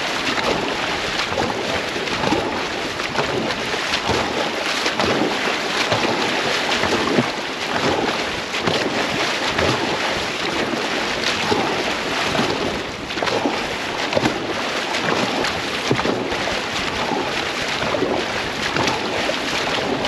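Dragon boat crew paddling hard: many paddle blades repeatedly striking and splashing through the water, over a constant rush of water along the hull and wind on the microphone.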